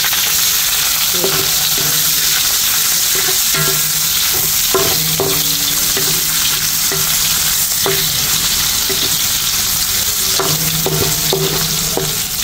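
Julienned ginger and green chillies sizzling steadily in hot oil in a wok, with a wooden spatula stirring and clicking against the pan now and then.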